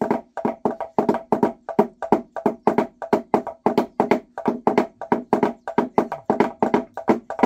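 Wooden percussion: hollow logs struck with sticks in a fast, steady rhythm of about five dry, ringing knocks a second.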